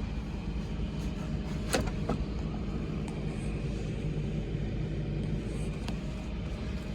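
Komatsu PC240LC-10 excavator's diesel engine running at a steady idle, heard from inside the cab, with a sharp click a little under two seconds in.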